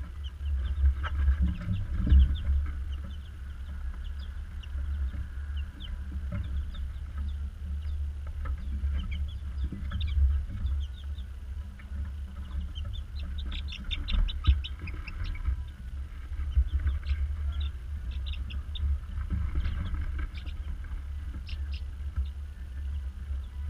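A brood of young chicks peeping, with many short high cheeps scattered throughout and a quick run of them about halfway through, over a steady low hum. A few louder knocks come near the start.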